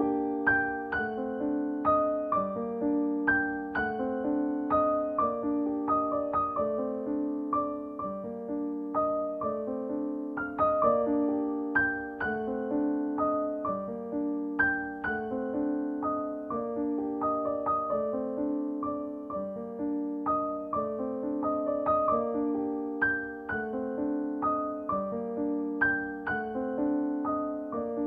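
Background piano music: gentle repeated notes and chords at a steady, unhurried pace.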